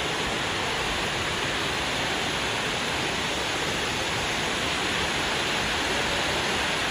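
Waterfall pouring into an underground pool in a cave, a steady even rush of falling water.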